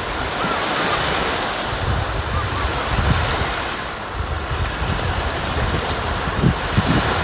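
Sea waves washing steadily on the shore, with wind buffeting the microphone in uneven low rumbles.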